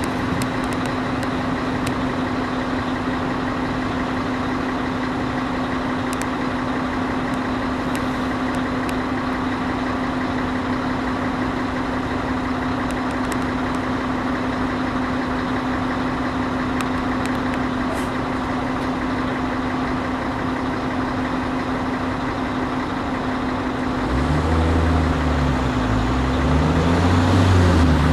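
Steady hum of a narrow-gauge train, holding one even tone. Near the end a lower engine note joins, rising and falling in pitch, and the sound grows a little louder.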